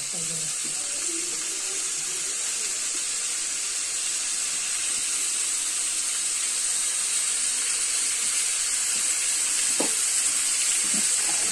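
Rohu fish pieces sizzling in hot oil as they are fried down in a spice paste: a steady hiss that grows slowly louder, with a couple of light knocks near the end.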